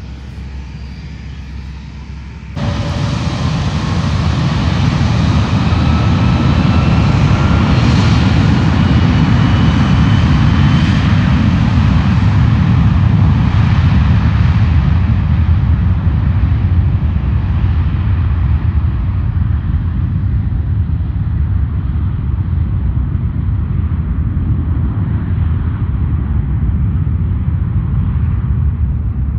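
Twin-engine widebody cargo jet's turbofans: a steady lower run, then about two and a half seconds in a sudden jump to takeoff power, a deep roar with a rising turbine whine as the engines spool up for the takeoff roll. The sound slowly loses its top end as the jet rolls away down the runway.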